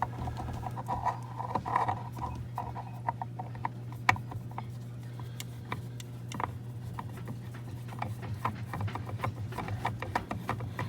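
Scattered light clicks and scrapes of a spin-on diesel fuel filter being handled and threaded onto its mount by hand, with heavy breathing from the strain, over a steady low hum.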